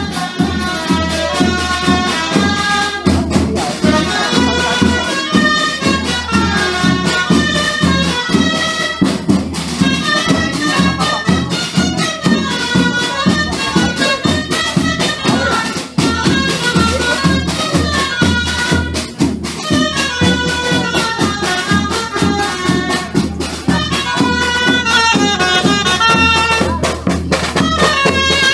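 Folk music: a quick melody of many short notes over steady, busy percussion.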